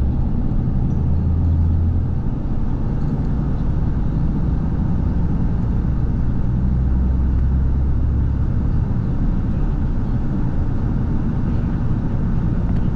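Steady low rumble of a running engine, with a deep hum that shifts slightly in pitch now and then.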